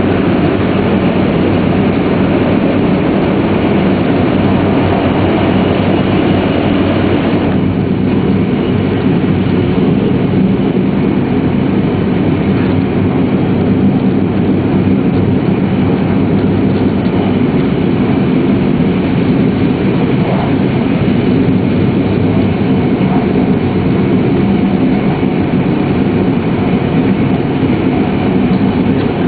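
Steady running noise of a Shinkansen train at speed, heard from inside the passenger cabin. The hiss drops suddenly about seven and a half seconds in, as the train comes out of a tunnel into the open.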